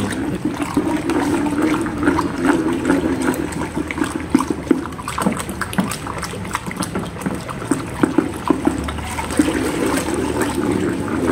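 Watery carbopol-and-water mixture being stirred by hand with a plastic pipe in a plastic bucket: continuous swishing and sloshing, with many small clicks throughout.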